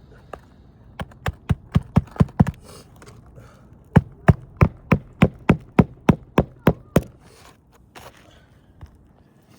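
Hammer driving nails into roof shingles: a quick run of about seven strikes, a short pause, then about eleven more, roughly four a second.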